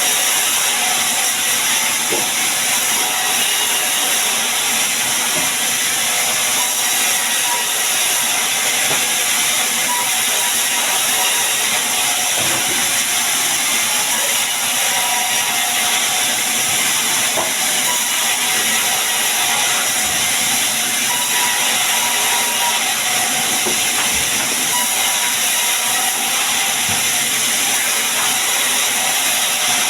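Sawmill saw running with a steady, loud, hiss-like noise that does not let up, as it works through sengon logs being cut into beams.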